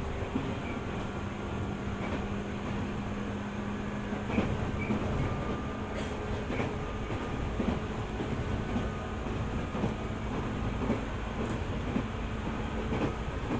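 JR 205 series 600 subseries electric multiple unit running between stations, heard from inside the car: a steady rolling rumble with a motor hum that fades about halfway through, and occasional knocks from the wheels over rail joints.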